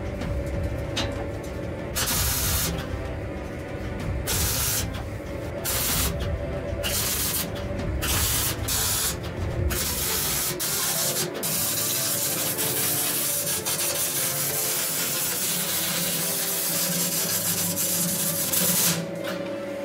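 MIG welding on steel: several short welding bursts, like tack welds, then one continuous weld of about nine seconds that stops abruptly near the end.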